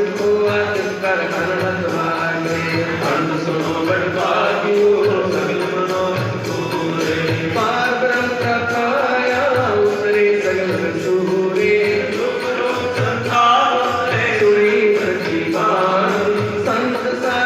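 Music: a sung, chant-like melody over steady instrumental accompaniment, playing continuously.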